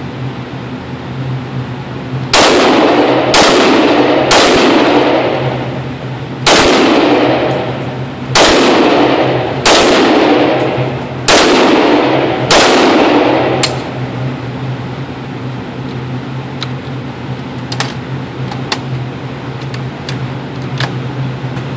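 FN F2000 bullpup rifle in 5.56×45mm NATO fired as single shots, eight loud reports roughly one to two seconds apart, each with a long echoing tail from the indoor range. A weaker report follows, then a few faint clicks, over a steady low hum.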